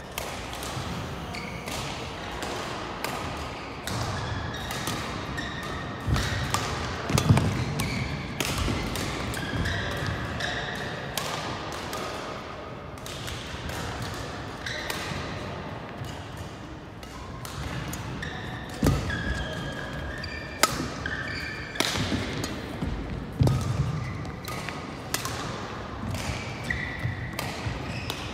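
Badminton play: rackets striking the shuttlecock in sharp, irregular cracks, with shoes squeaking and feet thudding on the court mat.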